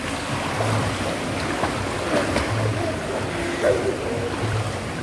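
Pool water splashing and churning as a child kicks and swims through it, a steady wash of water noise.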